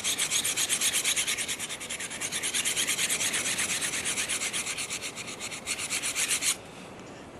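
Simmons Interceptor steel broadhead edge, held in a guide clamp, ground back and forth on a sharpening stone in quick, even strokes, several a second, to raise a burr on the edge. The scraping stops abruptly about six and a half seconds in.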